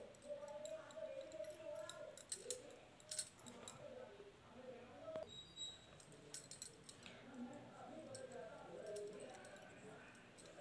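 Faint, scattered clicks and clinks of hand knitting with metal needles, over low, indistinct voices.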